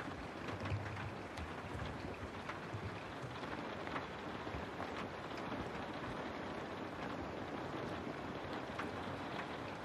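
Steady rain falling, with scattered sharp taps of individual drops.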